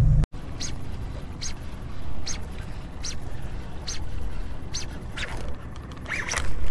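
Fishing reel being cranked while a hooked striped bass is brought in, giving a short high squeak about every 0.8 s over a low steady rumble. A louder burst of noise comes near the end.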